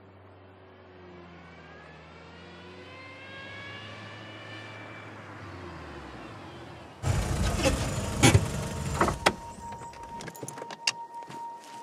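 A car's engine hum, slowly growing louder, then loud crackling and crunching as its tyres roll over dry pine needles and twigs on the forest floor and stop. A few sharp cracks stand out, and a steady high tone starts near the end.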